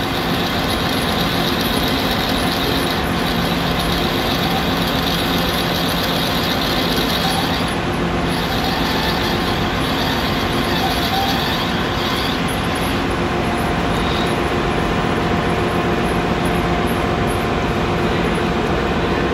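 Metal lathe running steadily with its chuck spinning, turning down a small brass fitting: an even machine hum. A thin steady tone joins it about two-thirds of the way through.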